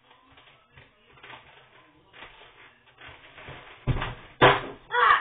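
Two heavy thumps about half a second apart, a little before four seconds in, followed by a short louder burst at the very end.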